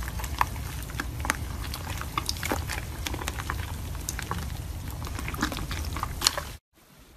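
Hands squishing and kneading sticky slime, giving irregular wet pops and clicks as air pockets burst. The sound cuts off suddenly near the end.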